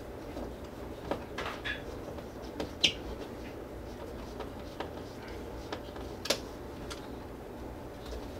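Scattered light clicks and taps from hand work on a wall-mounted thermostat base, the sharpest about three seconds in and again past six seconds, over a steady low hum.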